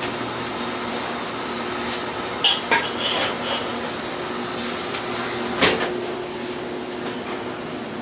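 Steady hum of a shaved-ice machine as a pineapple half piled with shaved ice is handled in and out of its metal cabinet. A few sharp clicks and clatters come about two and a half seconds in, and a single loud knock a little past halfway.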